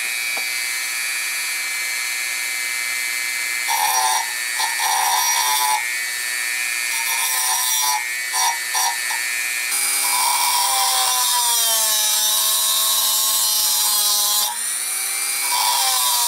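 Dremel rotary tool running on its low setting with a heavy-duty cut-off wheel, grinding into the metal tip of a hex wrench. A steady motor whine, broken by short grinding contacts from about four seconds in, then continuous grinding from about ten seconds in, with the motor's pitch dropping under the load.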